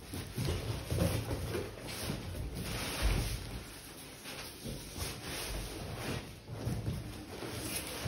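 Cardboard boxes being handled and pulled apart: irregular rustling and scraping of cardboard with dull knocks.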